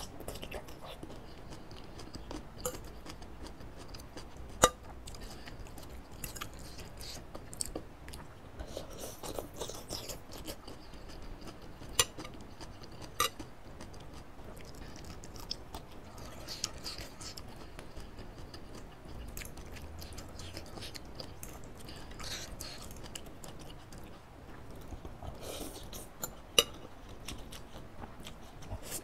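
Close-miked chewing and slurping of soupy instant noodles. A metal fork and spoon clink sharply against a ceramic bowl a few times.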